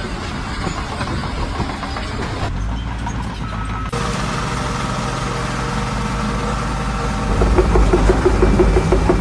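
Excavator engine running steadily. The sound changes abruptly twice in the first half and grows louder near the end, with a rapid rhythmic ticking over the drone.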